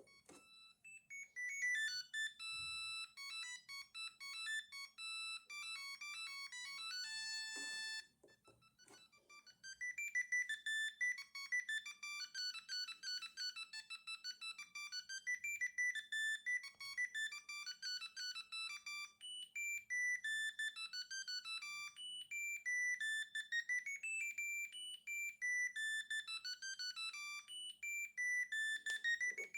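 Siemens A50 mobile phone playing its built-in ringtones: one electronic tune of stepping notes stops about 8 s in with a click, and after a short pause a second tune begins and repeats its phrase.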